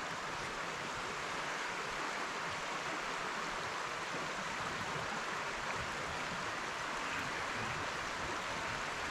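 Shallow rocky creek flowing over riffles: a steady, even rush of water.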